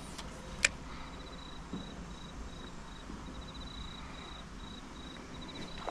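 An insect trilling high-pitched in repeated pulsing runs. A single sharp click sounds under a second in.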